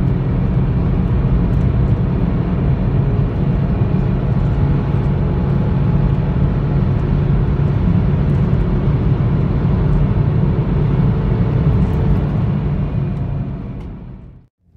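Opel Astra G's 1.7 DTI 16V turbo-diesel four-cylinder (Y17DT) under full acceleration at about 4,000 rpm and high road speed, heard inside the cabin with road and wind noise. The engine note holds steady, then fades out about a second before the end.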